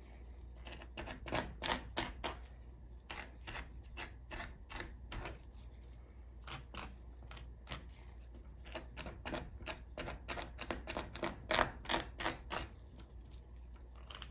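Plastic pan scraper scraping fat from the underside of raw chicken skin on a cutting board, in quick uneven strokes, several a second.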